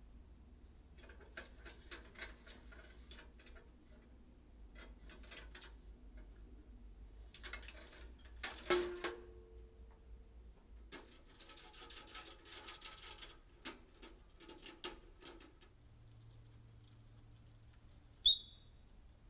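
Ground squirrels scrabbling and pattering in and around the wire-mesh cage of a live-catch rodent trap, with soft scratches and rustles. A loud metallic clank with a short ring comes about nine seconds in, and a sharp, high squeak comes near the end.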